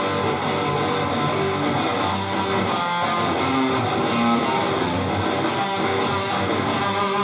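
Electric guitar with a Lace Sensor dually pickup wired as a humbucker in series, played through a driven, gained-up tone: continuous strummed and picked chords and notes.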